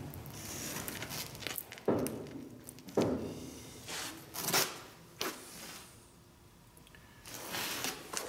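Steel cheater pipe clunking and scraping on a welded steel plate test piece set in a trailer's stake pocket as it is fitted and levered to bend the plate. A few separate knocks, with a quieter second or so past the middle.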